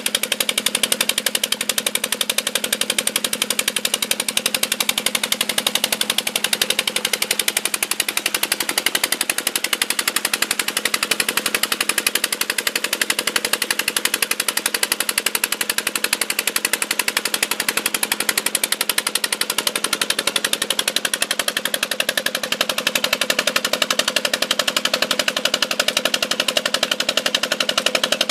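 Peter (Petter) single-cylinder diesel engine running a tube-well pump, with a fast, even beat that never lets up, over water gushing out of the pump's outlet pipe.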